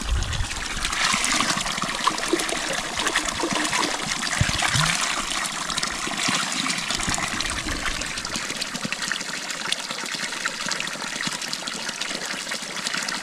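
Spring water running steadily out of a plastic pipe and splashing onto stones, a continuous trickling, splashing sound.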